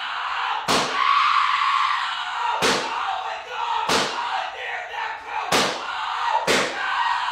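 A fight breaks out: five sharp smacks land at uneven intervals over a continuous din of yelling.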